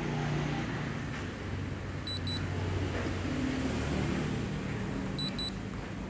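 Touch control panel of a Changhong side-by-side refrigerator beeping as its buttons are pressed: a quick double beep about two seconds in and another about five seconds in, over a steady low background rumble.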